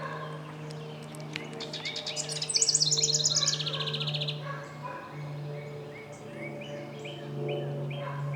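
Several songbirds singing and calling. About two and a half seconds in, a loud rapid trill of quickly repeated notes steps down in pitch and lasts nearly two seconds. A steady low hum runs underneath.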